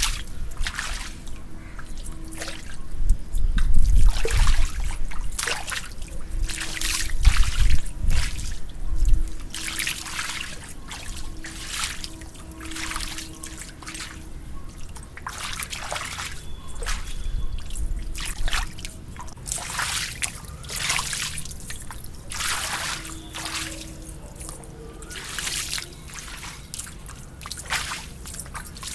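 Water trickling and splashing in irregular spurts, with low rumbling noise about four and eight seconds in.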